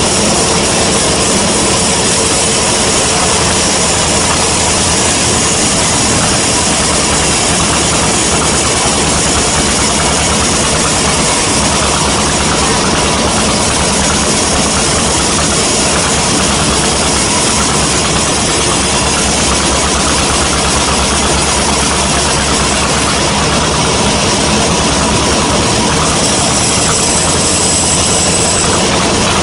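Sawmill band saw running with a loud, steady machine drone while sawing a gmelina log.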